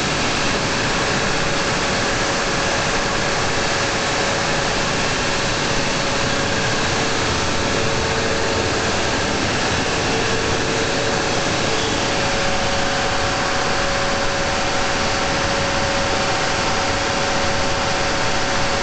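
Cummins 1500 kW diesel generator set running at a steady speed, loud and even with a few constant whining tones over the engine noise; another tone joins about twelve seconds in. It runs very smoothly, with no knocks or surges.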